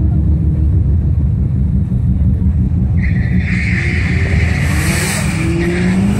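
Car engines rumbling low and steady. A hiss joins about three seconds in, and near the end an engine revs up, rising in pitch.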